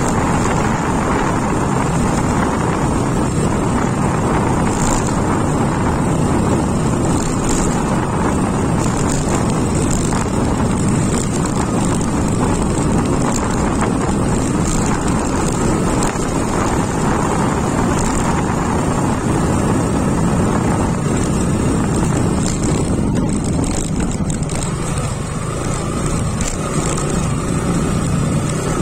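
Motorcycle running steadily at riding speed, mixed with wind noise on the microphone.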